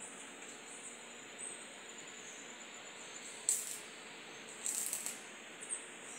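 Outdoor rural ambience with a steady high insect drone. A few short, high bursts of noise come about three and a half seconds and five seconds in.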